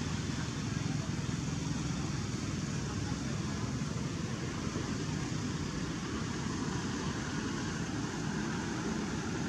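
Steady outdoor background noise, a low rumble with a hiss over it, unchanging throughout and with no distinct calls or knocks.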